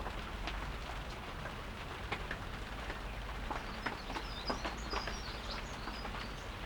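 Light rain with scattered drops landing, over a low steady hum; a small bird chirps several times from about three and a half seconds in.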